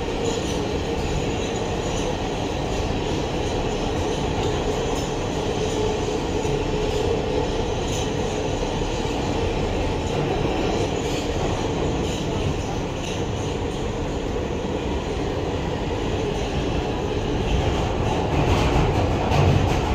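Inside an R160B Siemens subway car running at speed: a steady rumble of steel wheels on the rails with a constant tone running through it and some rail clatter, swelling a little louder near the end.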